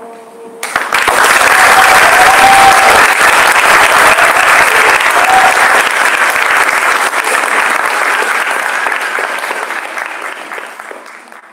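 Theatre audience applauding a curtain call: clapping breaks out suddenly about a second in, stays loud, then fades away over the last few seconds.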